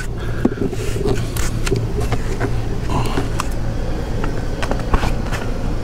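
Scattered clicks and knocks from a red two-ton hydraulic floor jack being worked under a car, over a steady low hum.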